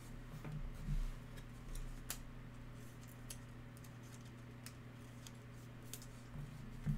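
Faint crinkling and light clicks of thin plastic as a trading card is handled and worked into a clear plastic sleeve, with scattered small ticks. A low steady hum runs underneath.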